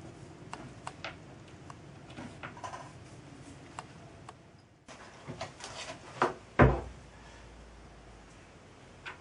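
Small metal clicks and ticks as a small brass pinion gear is handled between the fingers and set down on a wooden workbench. A little past halfway come handling noises and two knocks on the bench, the second the loudest, followed by a faint click near the end.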